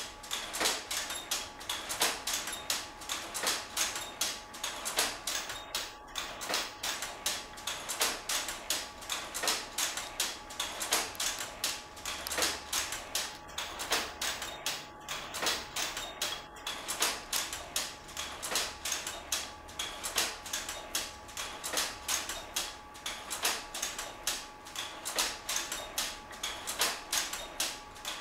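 Power loom running and weaving, clacking in a fast, even rhythm of about three sharp strokes a second from the shuttle picks and beater, with a faint steady machine hum underneath.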